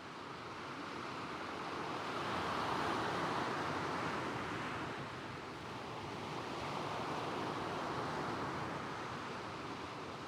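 Gentle waves breaking and washing across a stony shingle beach, the surf noise swelling twice, first about three seconds in and again near eight seconds.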